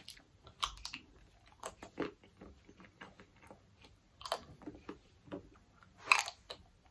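A person chewing and crunching a piece of dark chocolate Easter egg, with scattered small crunches and mouth clicks and a louder burst of crunching about six seconds in.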